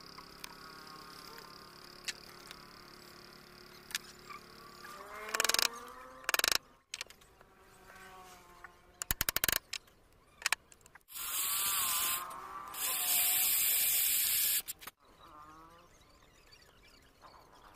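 Electric drill boring into wood in two runs of about one and a half seconds each, a short gap between them: two dowel holes being drilled for a joint. Scattered taps and knocks before that.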